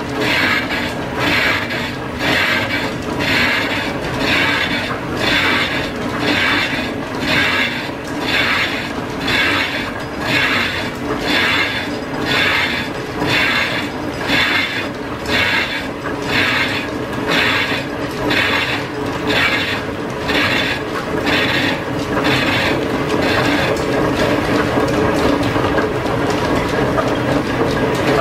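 Metal lathe facing the end of a piston-ring casting with a high-speed-steel tool, the cut scraping and rasping in pulses about one and a half times a second as the tool works through the hard, gnarly skin on the end. Around three-quarters of the way through, the pulsing gives way to a steady cut.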